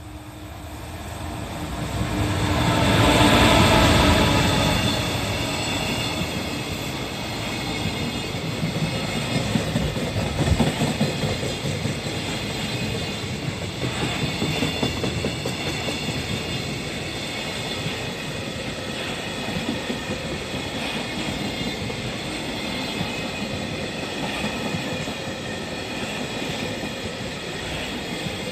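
Freight train hauled by an EF210 electric locomotive passing close by. It is loudest as the locomotive goes past about three to four seconds in, then a long string of wagons rolls by with a steady rumble and clickety-clack of wheels over the rails.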